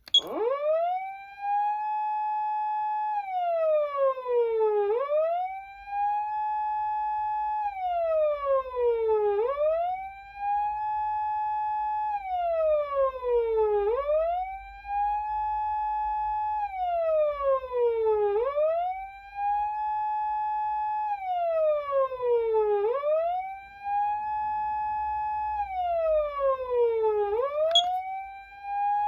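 PATLITE SAP-500BWK-GV electronic siren amplifier sounding a police-style wail. The tone comes on abruptly, rises quickly, holds steady for a couple of seconds, then slides down about an octave and sweeps back up, repeating about every four and a half seconds.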